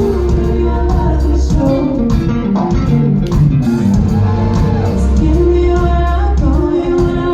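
Live R&B band playing, with a woman singing a slow, wavering melody over held low bass notes.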